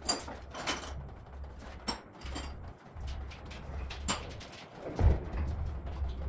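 Workshop noise: scattered light knocks and clanks over a low rumble, with one heavier thump about five seconds in.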